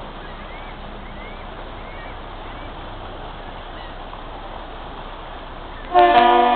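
The Great Lakes freighter Canadian Transport's horn sounds a single loud, rich blast starting near the end, the ship signalling the lift bridge, over steady rushing background noise.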